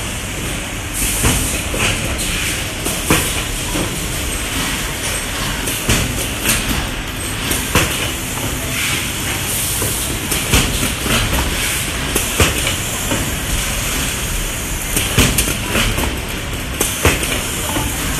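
Automated rigid gift-box making machinery running steadily, with frequent irregular clacks and knocks from its moving parts and occasional short stretches of hiss.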